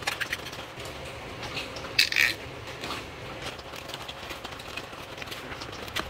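Faint handling noises of a mower's air cleaner being reassembled: light clicks and rubbing as the filter element and its cover are fitted, with one short scrape about two seconds in.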